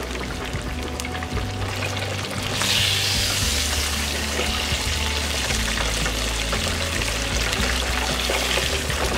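Battered croaker fish frying in hot oil in an electric deep fryer: a steady sizzle that grows louder about two and a half seconds in. Background music with a low bass line runs underneath.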